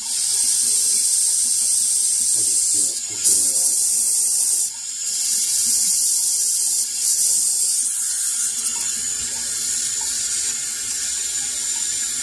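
Steady high-pitched hiss of air escaping through a newly fitted Honeywell SuperVent automatic air vent as the hot-water boiler system fills with water. The hiss dips out briefly a few times in the first five seconds.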